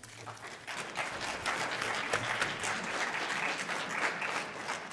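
Audience applauding: many people clapping, swelling quickly at the start and thinning out near the end.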